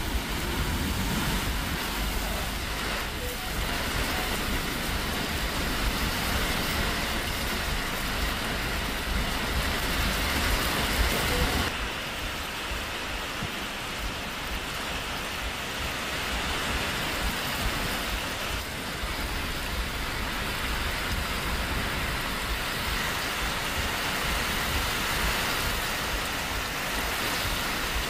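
Heavy rain pouring down, a dense steady hiss, with an abrupt change in its sound about twelve seconds in.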